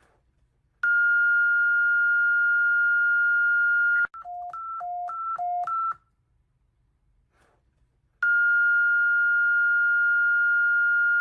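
Electronic emergency alert alarm tone: a steady high tone held about three seconds, then quick alternating low and high beeps, a pause of about two seconds, and the steady high tone again.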